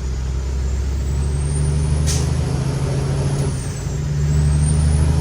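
Loaded Kenworth T800's Cummins X15 diesel pulling, with a high turbo whistle that climbs, falls away about three and a half seconds in, then climbs again. A brief sharp hiss about two seconds in.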